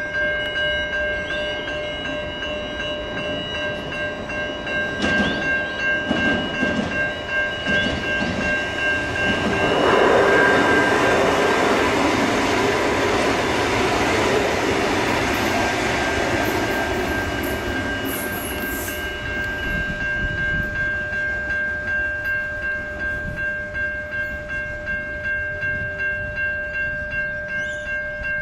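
Suburban train running past on the rails, its noise swelling to the loudest about ten seconds in and fading again over the next several seconds, over a continuous ringing of several steady high tones.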